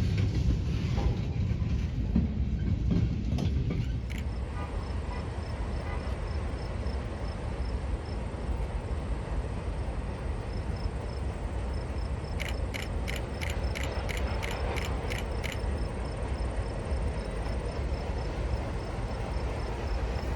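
Freight train rolling by: a heavy low rumble for the first few seconds that then eases to a steadier rolling noise, with a quick run of about ten sharp clicks around the middle.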